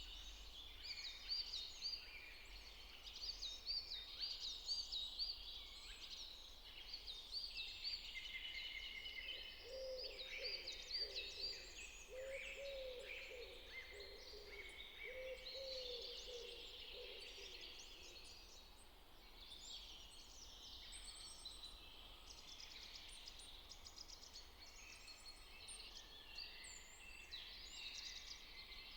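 Faint birdsong: several small birds chirping and singing with short, repeated, high notes, joined in the middle by a lower, repeated call.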